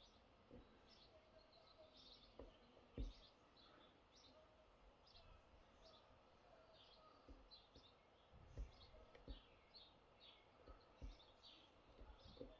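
Near silence: faint, repeated small-bird chirps, with a few soft knocks from working the pick in a lock.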